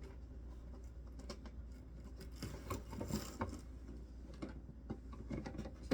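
Handling noise from parts of an animatronic prop's arm being fitted together: scattered small clicks, rubbing and rustling, busiest about halfway through, with a sharp click at the very end.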